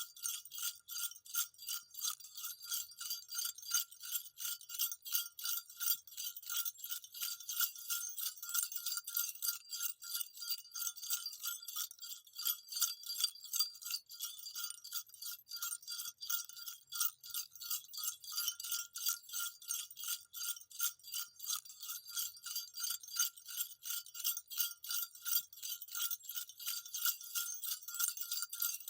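Small jingle bells shaken steadily, a continuous rapid jingling of many strokes a second with a bright metallic ring that holds an even level throughout.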